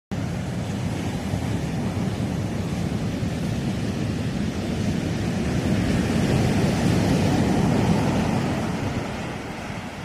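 Sea waves breaking and washing up a sandy beach, a steady surf noise that swells to its loudest about six to eight seconds in and eases off near the end.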